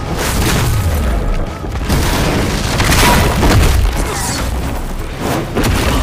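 Heavy booming impacts and crashes of a film fight, several hits in quick succession, with music underneath.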